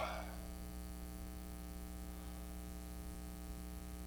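Steady low electrical mains hum, with a brief rustle right at the start.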